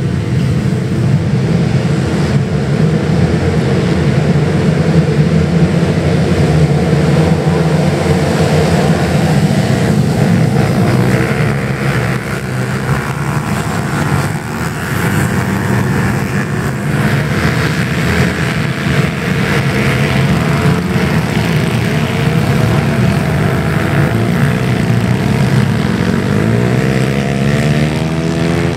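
A pack of 88cc pit bike engines running and revving together as the field gets away from the start and passes close. Near the end, single bikes sweep up and down in pitch.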